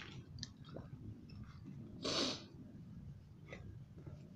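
A person's single sharp breath out, about half a second long, a little over two seconds in, amid faint scattered clicks and rustles.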